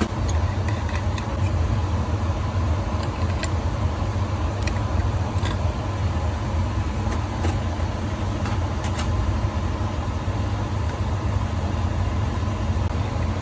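Steady low hum and rushing air of a clean-room fan or blower running, with a few faint light clicks.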